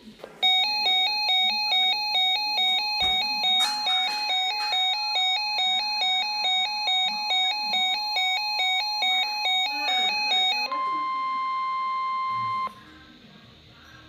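Handheld NOAA weather radio sounding its alert for an incoming warning: a warbling two-tone alarm pulsing about three times a second for some ten seconds. The steady 1050 Hz NWS warning tone then sounds alone for about two seconds and cuts off sharply.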